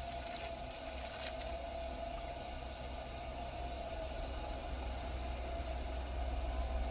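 A steady low mechanical hum with a thin steady tone over it and a faint hiss, with a few short light clicks in the first second and a half.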